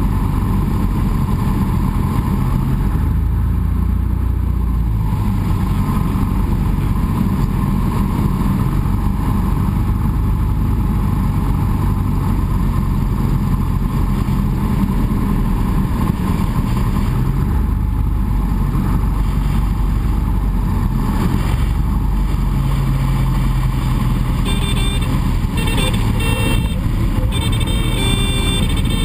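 A Cessna 172's piston engine and propeller running steadily at reduced power on final approach, with wind noise. From about 25 seconds in, a thin high tone sounds on and off during the flare just before touchdown, typical of the Cessna's stall warning horn.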